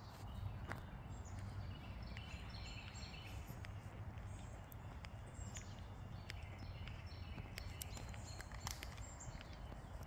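Footsteps on a trail, with scattered birds chirping over a steady low rumble.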